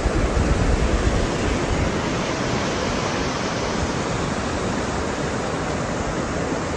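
Sea surf on a beach: a steady rush of waves breaking and washing.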